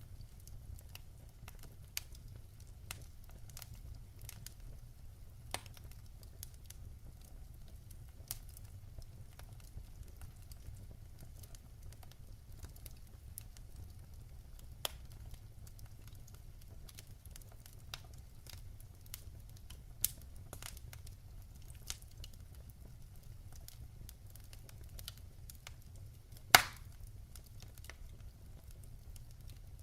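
Wood fire burning in a fireplace, crackling with irregular sharp pops and one loud pop near the end, over a steady low rumble.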